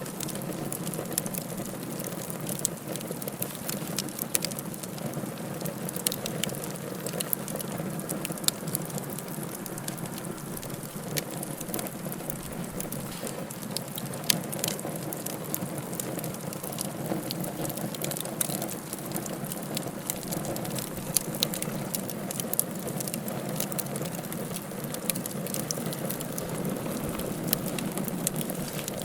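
Wood fire burning in a fireplace: a steady low rush of flames with frequent sharp, irregular crackles and pops.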